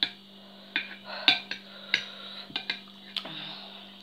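Metal fork and spoon clinking and scraping against a glass bowl while eating, about eight sharp clinks at irregular intervals.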